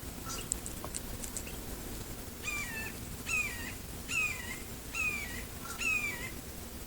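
Red-shouldered hawk calling five times, a repeated call that falls in pitch, just under a second apart, with a few faint clicks before the first call.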